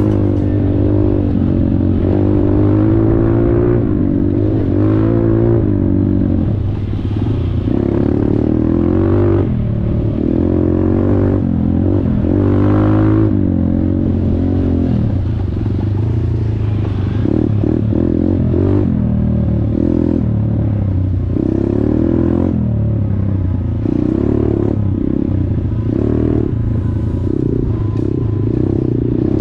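Motorcycle engine running hard, its pitch rising and falling again and again as the throttle is opened and closed.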